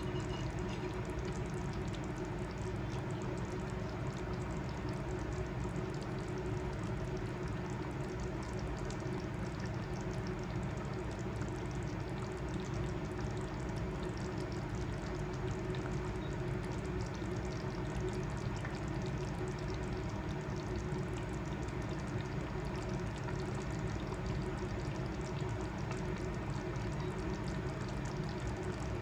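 Chicken curry simmering in the pot with water added, a steady bubbling hiss throughout, over a low steady hum.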